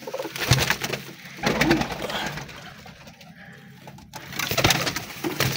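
Domestic pigeons cooing in the loft, with a few sharp knocks and rustles close by, the sharpest about four seconds in.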